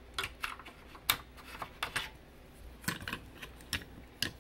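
Irregular light clicks and taps of hard plastic: a small black computer cooling fan handled and test-fitted against the Macintosh Performa 475's plastic case.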